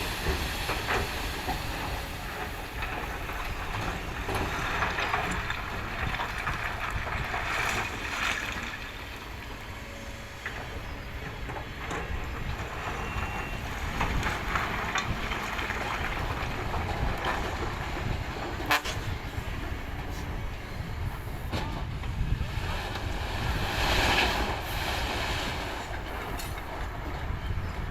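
Kobelco excavator at work digging rock: engine running under a rough, windy noise, with several swells of scraping noise and one sharp knock about two-thirds of the way through.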